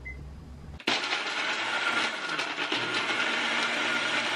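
A NutriBullet blender starts about a second in and runs steadily at full speed, grinding a batch of Oreo cookies into crumbs. A short keypad beep sounds right at the start.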